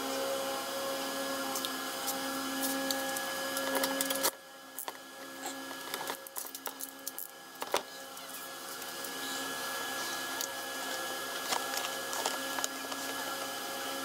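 Ford 4.0-litre V6 idling steadily, with scattered light clicks and knocks from a tool working up in the wheel well.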